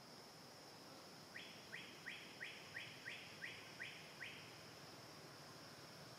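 A bird calling a run of nine quick notes, about three a second, each sweeping sharply upward, starting about a second in and stopping a little past the middle. A steady high-pitched hum runs underneath.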